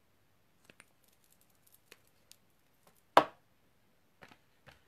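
Handling noise of small objects being picked up and put down: scattered light clicks and taps, with one sharp knock about three seconds in.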